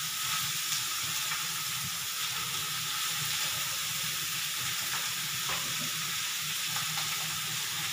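Chopped vegetables (peas, carrots, onion, capsicum) sizzling steadily in oil in a kadhai as they are sautéed, with a few soft scrapes of a spatula stirring them.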